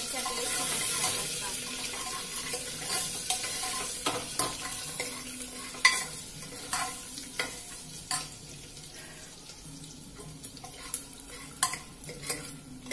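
Ginger-garlic paste and cumin sizzling in hot oil in a pressure cooker pot as a spoon stirs and scrapes through it, knocking against the pot now and then. The sizzle is strongest at the start and dies down as the paste fries.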